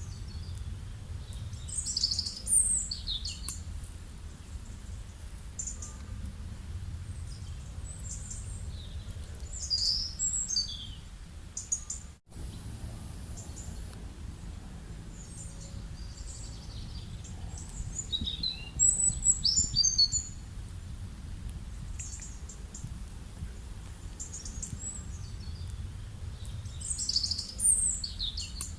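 Birds calling in clusters of quick high chirps and falling whistled notes, about four bursts roughly eight seconds apart, over a steady low rumble of outdoor ambience. The sound cuts out for an instant near the middle.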